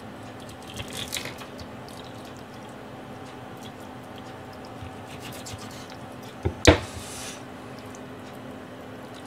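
Kitchen knife cutting through a fish on a plastic cutting board, with quiet wet squishing as the flesh is split and pulled apart. There is a brief crackle about a second in, and two sharp knocks of the knife against the board about six and a half seconds in.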